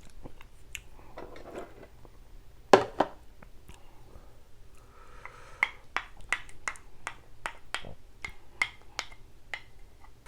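Close-miked chewing and mouth sounds of someone eating. There is one sharper knock about three seconds in, then a run of quick wet clicks, about two a second.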